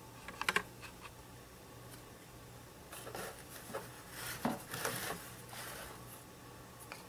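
Hands working on the opened gearbox of a pop-up headlight motor: a quick cluster of sharp plastic clicks about half a second in as the gear cover and a small hex key are handled, then irregular scratchy rubbing as a fingertip works over the gear inside the housing.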